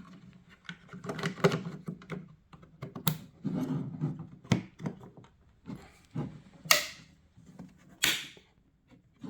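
Plastic clicks and knocks of a Skoda Octavia II xenon headlight's rear cover being fitted and its locking tabs pressed into place, with two louder short scraping noises in the second half.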